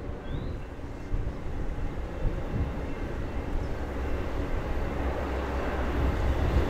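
Low rumble of the Amtrak California Zephyr's diesel locomotive approaching from a distance, slowly growing louder toward the end.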